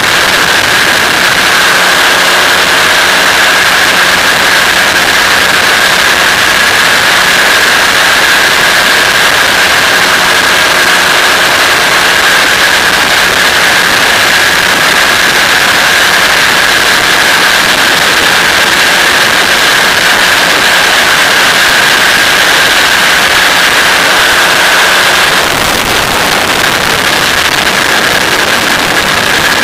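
Engine of a flexwing microlight trike in cruising flight: a steady drone under loud wind rush on the microphone, with a steady high tone above it. About 25 seconds in, the high tone drops out and the sound eases slightly.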